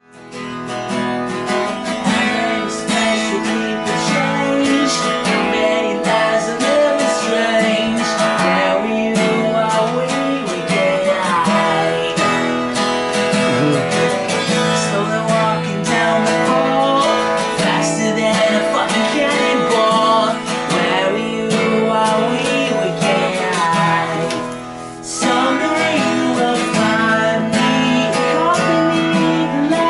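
A man singing while strumming an acoustic guitar, with a short break about five seconds before the end.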